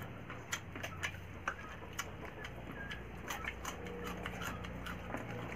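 Eating sounds from people eating rice and meat with their hands: irregular small clicks and smacks of chewing, scattered through, over a low steady hum.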